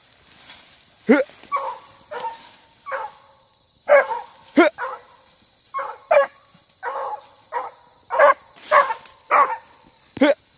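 Hunting dog barking and yelping over and over, about one to two short calls a second, excited at an armadillo held up to it.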